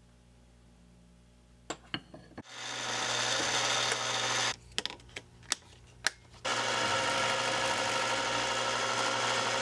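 Mini metal lathe turning brass: a steady hiss of cutting over the motor's low hum, starting a couple of seconds in after two clicks. It pauses for about two seconds with a few sharp clicks, then runs again.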